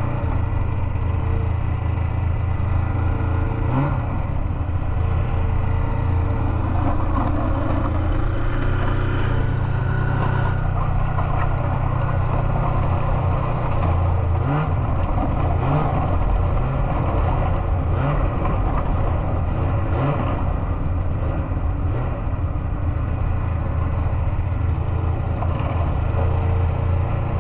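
Snowmobile engines running steadily, rising briefly in pitch several times as they rev.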